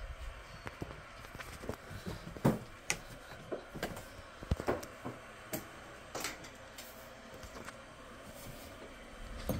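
Scattered light clicks, knocks and rustles from a phone being handled and moved around while filming, with no steady sound under them.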